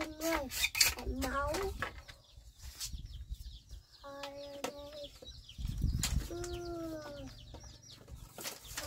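Chickens clucking and calling: a run of short, clipped clucks about four seconds in, and a longer arching call about two seconds later, with scattered sharp knocks between them.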